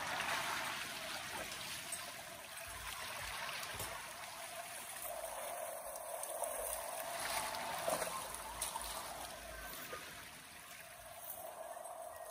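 River water running steadily, a continuous rush and trickle of moving current, with a few faint clicks, the clearest about eight seconds in.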